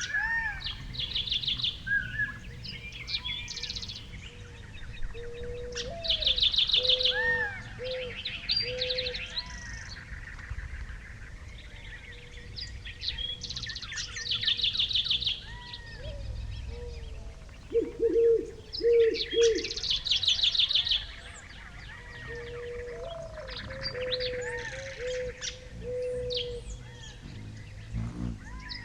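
Several small birds chirping and singing, with fast trills repeated every few seconds and a run of lower, fuller notes about two-thirds of the way through.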